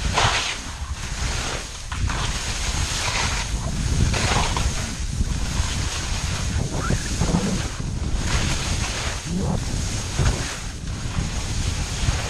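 Skis hissing and scraping over snow on a steep descent, mixed with wind rushing over the microphone. The noise starts suddenly and swells and eases every second or two with the turns.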